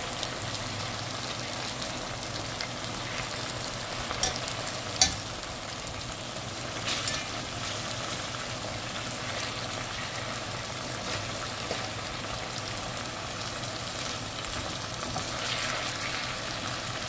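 Chicken pieces sizzling steadily as they brown in hot oil in a metal pot, with a few sharp clinks of a metal fork against the pot as the pieces are turned, mostly in the first half.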